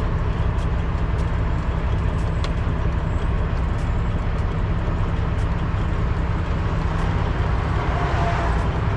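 Detroit Diesel engine of a 1998 Peterbilt 379 idling steadily, heard from inside the cab, while the power take-off is engaged to drive the car-hauler trailer's hydraulics. A faint steady whine comes in near the end.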